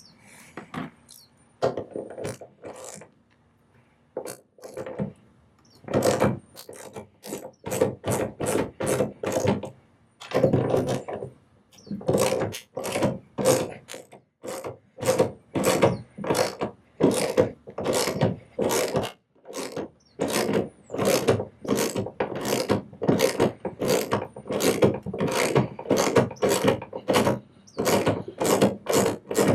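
Socket ratchet wrench clicking in runs of strokes, about two to three clicks a second, with short pauses between runs, as a bolt is turned.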